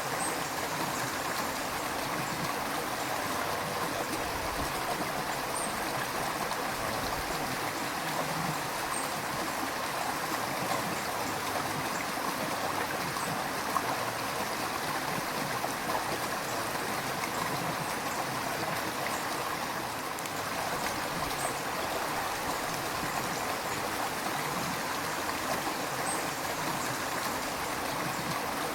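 River water flowing and rushing over rocks, a steady, even wash of noise with small splashes and gurgles in it.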